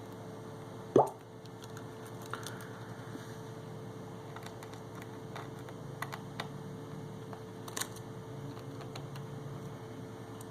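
Light clicks and taps of small tools on the internals of an opened iPhone 6 as the camera's cover plate and the camera are pried loose, with one louder short knock about a second in. A faint steady hum runs underneath.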